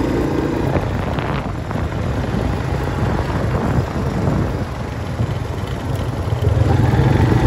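Off-road utility vehicle running along a gravel track, a steady engine hum under the rumble and noise of the ride. The engine gets louder about six and a half seconds in.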